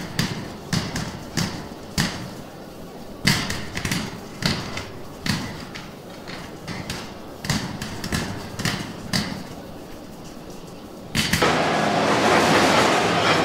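Irregular knocks and thuds of bread loaves and plastic crates being handled as hot loaves are packed into crates. About eleven seconds in this gives way suddenly to the steady running noise of a bakery conveyor line.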